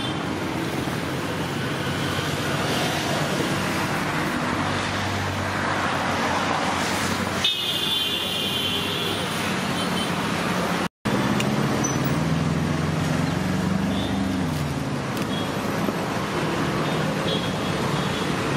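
Steady roadside traffic noise from passing motor vehicles, with low engine hums swelling and fading as vehicles go by. The sound cuts out for an instant a little past halfway.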